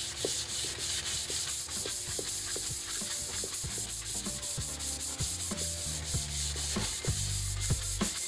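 Sandpaper rubbed by hand over a white IKEA KOMPLEMENT shelf in rapid back-and-forth strokes, a steady scratchy rasp. This is a light sand to key the surface before it is painted.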